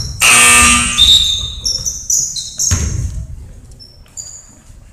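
Basketball game on a hardwood gym floor: sneakers squeaking in short, high chirps, the ball bouncing, and players' voices. Near the start a loud, steady pitched sound is held for most of a second.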